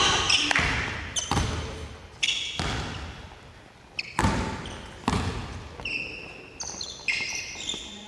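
Basketballs bouncing on a hardwood gym floor in a reverberant hall, single sharp thuds about once a second, with short high-pitched sneaker squeaks in between.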